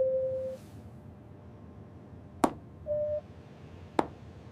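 Two short electronic beeps, a half-second one at the start and a shorter, slightly higher one near the middle, with a sharp click before and after the second beep, over a low steady background hum.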